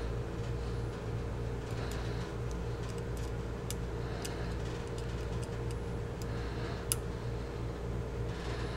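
Scattered light metallic ticks as a small bolt and hex key are handled against a steel shotgun receiver, one tick louder about seven seconds in, over a steady low hum.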